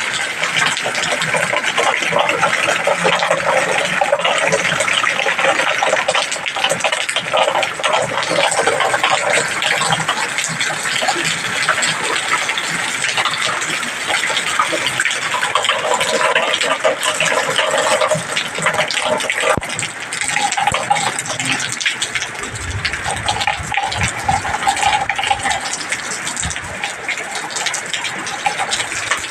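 Heavy rain pouring down, a loud, steady rush of water.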